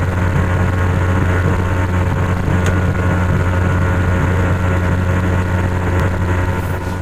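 Kingfisher Fastwater jet boat's engine running steadily at speed, heard from inside the enclosed cabin over the hiss of water rushing past the hull. Two faint clicks, one near the middle and one near the end.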